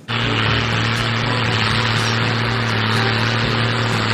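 Large tractor engine running steadily under load while pulling a square baler: an even, unbroken hum with a low drone.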